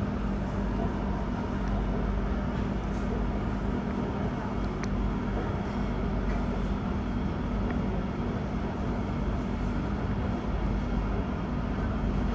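MRT Blue Line metro train running on its elevated track, heard from inside the carriage: a steady rumble with a constant low hum and a few faint clicks.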